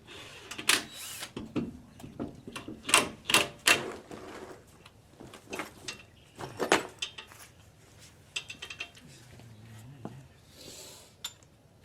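Hand tools and car parts being handled: an irregular series of sharp knocks and clicks, with a brief hiss near the end.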